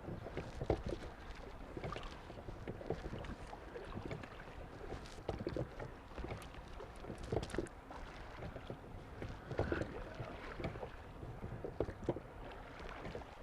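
Water splashing and lapping around a drifting boat on a fast river current, with irregular small knocks from the boat.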